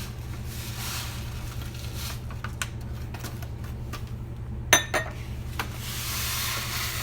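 Dry millet grains being scooped with a measuring cup and poured into a pot, a rustling hiss of falling grain with small clicks. About two-thirds through comes a sharp clack of the cup against the pot, all over a steady low hum.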